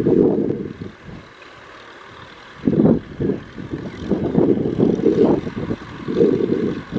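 Tractor engine working in deep mud, coming in irregular loud surges with a quieter lull about a second in.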